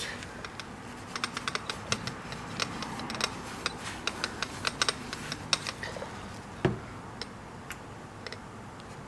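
Scattered light clicks and taps from handling a drill, its foam polishing cone and a bottle of metal polish while the polish is applied; the drill is not running. One heavier knock comes about two-thirds of the way through.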